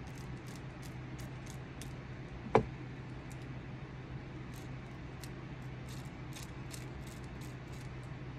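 Hand carving knife shaving and scraping a wooden walking stick in short, irregular strokes, two or three a second, over a steady low hum. One sharp tap sounds about two and a half seconds in.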